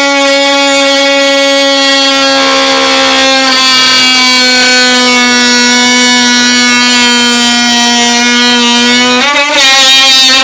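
Power tool running with a steady high whine while cutting out rotted wood at the base of a wall. The pitch dips slightly about a third of the way in and wavers near the end as the cut loads it.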